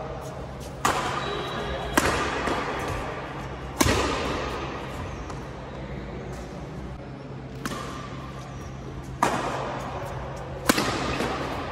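Badminton rackets striking a shuttlecock during a rally: about six sharp smacks, one to two seconds apart, each ringing on in the echo of a large sports hall.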